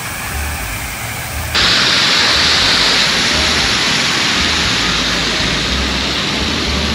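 Crown Fountain water pouring down the glass-block towers and splashing into the shallow pool: a steady rushing hiss that suddenly gets louder about a second and a half in.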